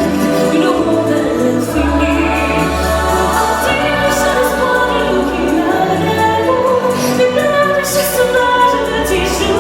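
Show music playing loudly with a choir singing over an orchestral backing with a steady bass; the lyrics are not made out.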